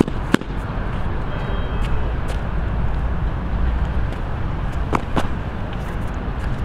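Steady outdoor background rumble, heaviest in the low end, like distant city traffic, with a few sharp taps: one about a third of a second in and two close together around five seconds in.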